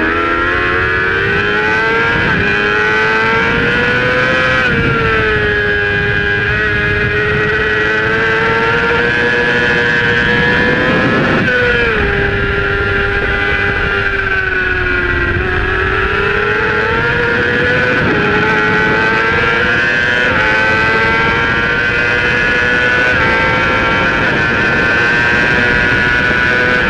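Supersport racing motorcycle engine running hard at high revs under full race use. Its pitch climbs and falls with throttle and gear changes, with sharp drops at shifts about four and a half and eleven and a half seconds in.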